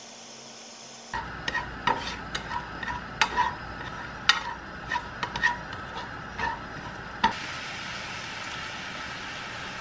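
Chopped onion and green onion sizzling in a nonstick frying pan, starting about a second in, while being stirred with a utensil that clicks and taps sharply against the pan many times. From about seven seconds in the stirring stops and only a steady sizzle remains.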